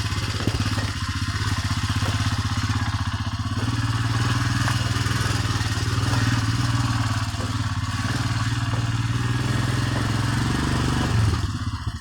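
Motorcycle engine running steadily under way, with wind rushing over the microphone. The engine eases off about eleven seconds in.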